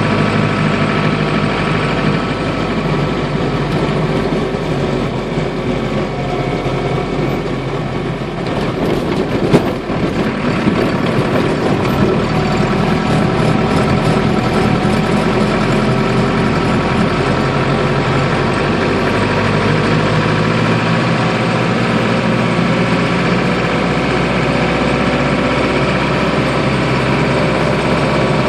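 Land Rover 109 with a Defender Td5 five-cylinder turbo diesel running steadily under way, heard from inside the cab, its engine note shifting a few times. There is a single sharp knock about nine seconds in.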